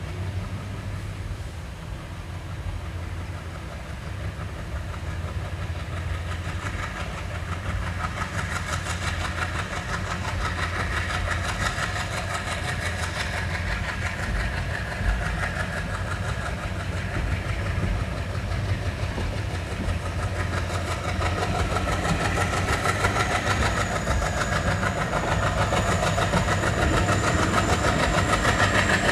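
Passenger train running on its rails, heard from inside the coach: a steady rumble with wheel clatter that grows gradually louder, and a faint rising whine near the end.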